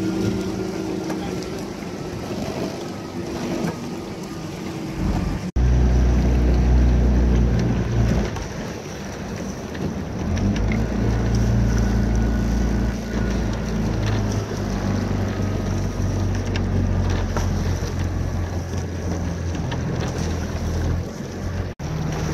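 Motorboat engine running steadily, with wind buffeting the microphone. The sound breaks off abruptly twice, about five seconds in and near the end.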